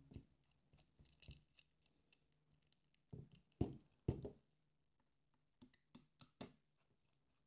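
Faint clicks and light knocks of a small brushless drone motor and its mounting screws being handled with a screwdriver. Two louder knocks come close together about halfway through, with a few smaller clicks after.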